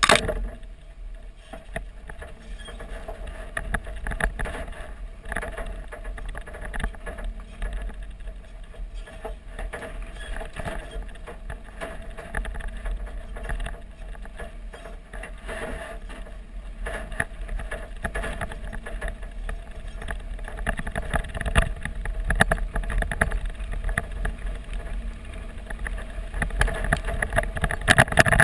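Toyota Tacoma pickup driving over a rough dirt track: wind buffeting and tyre rumble with irregular knocks and rattles from the body and suspension over the bumps, getting louder near the end. A branch slaps against the side of the truck right at the start.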